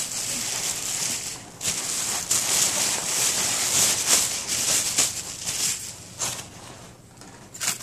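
Clear plastic wrapping crinkling and rustling as it is handled and pulled off a replica championship belt, irregular and loud, easing off for the last second or so.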